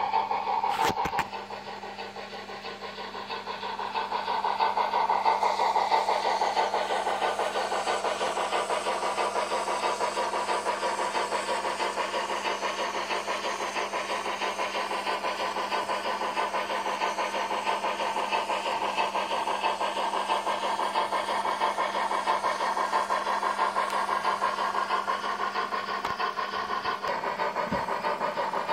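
Sound decoder of a TT-scale BR 95 model steam locomotive playing steam-engine chuffing through its small onboard speaker. After a click about a second in, the chuffing builds over the next few seconds and then runs steadily at a quick beat, over a faint steady hum.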